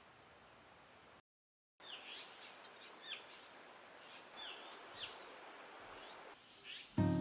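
Wild birds chirping: a string of short, sharp calls that slide downward, repeated every half second or so over a faint outdoor hiss. The audio cuts out briefly near the start, and guitar music comes in at the very end.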